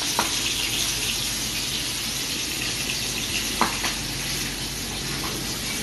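Pangas fish pieces frying in hot oil in a small wok, sizzling steadily. A metal spatula stirring them gives two light clicks against the pan, near the start and again about two-thirds through.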